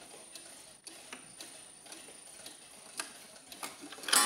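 Mechanical Black Forest cuckoo clock ticking, with a sharp click every so often. Just before the end comes a sudden loud clatter of clicks.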